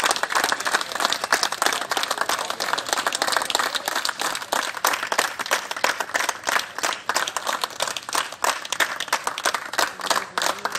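A group of a few dozen people applauding, many hands clapping at once in a dense, continuous stream of claps.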